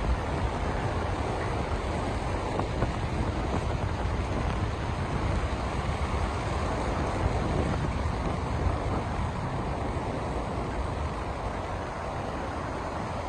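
Strong wind buffeting the microphone: a steady rushing noise, heaviest in the low end.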